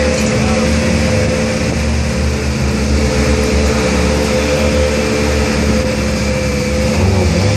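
An engine running steadily with a low drone and a steady hum, not revving.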